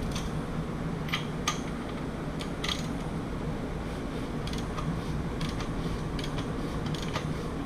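Scattered light metallic clicks and taps of hand tools and timing-set parts being worked at the front of an LS short block, over a steady low hum.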